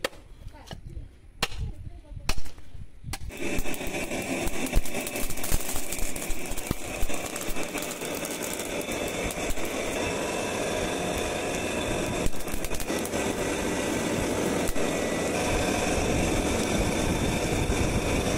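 A few sharp chops of a machete into a bamboo root, roughly a second apart. About three seconds in they give way to the steady rushing drone of a blacksmith's forge blower blasting air into a coal fire with a blade heating in it, growing slightly louder toward the end.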